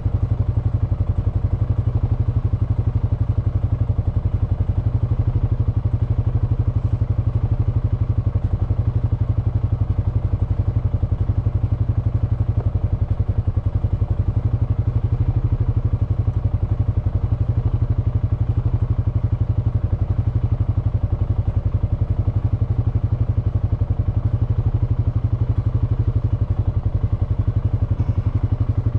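Honda FourTrax Foreman ATV's single-cylinder engine idling steadily, with an even low pulsing.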